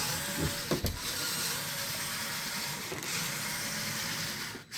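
Lego Technic car's four Power Functions L motors driving it fast through their gearing: a steady whirring, with a couple of knocks about half a second to a second in.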